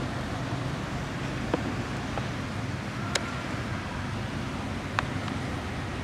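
Steady low outdoor rumble, like distant traffic, with a few faint sharp clicks scattered through it.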